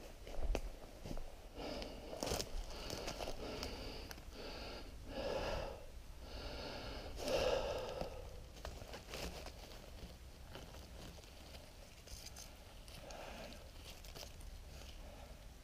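A person breathing heavily, a run of short wheezy breaths over the first half, with rustling of dry leaves and twigs underfoot and by hand.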